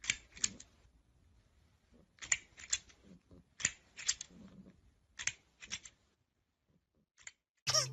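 Sharp clicks or taps in pairs about half a second apart, the pairs repeating every second or so, with a louder click near the end.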